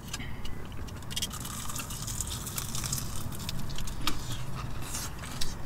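Chewing and crunching of crispy fried chicken wings: irregular crackly crunches and clicks from bites and chewing.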